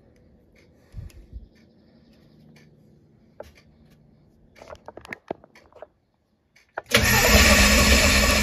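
Faint clicks and knocks of handling, then about seven seconds in a test engine suddenly starts cranking over on its starter, loud and steady. The cranking is done to check for ignition spark at a spark tester on a pulled plug wire.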